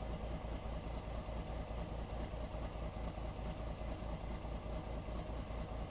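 Nissan Diesel (UD) truck's diesel engine idling steadily, with an even low throb.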